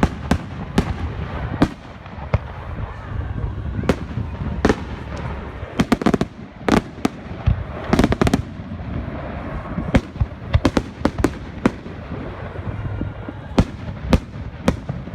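Fireworks going off: a rapid, irregular string of sharp bangs and crackles over a low rumble, with a dense cluster of reports around the middle.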